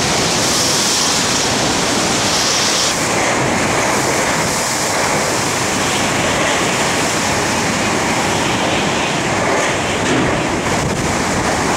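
Hurricane-force wind in the core of Hurricane Ernesto: a loud, steady rushing noise, with wind buffeting the microphone.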